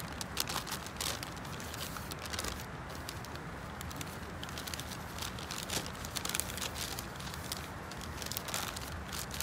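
Brown kraft paper bag crinkling and rustling as it is handled and opened by hand, in quick, irregular crackles.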